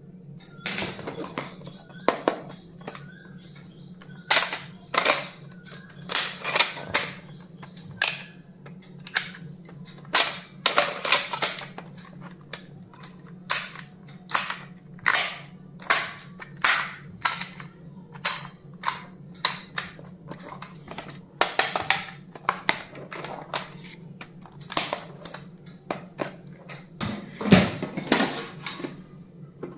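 Stationery items being handled and opened: a string of sharp clicks, snaps and taps at irregular intervals, about one or two a second, over a steady low hum.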